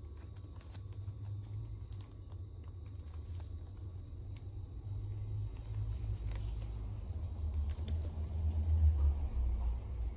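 Stationery and packaging being handled on a table: scattered small clicks and taps over a low rumble that swells near the end.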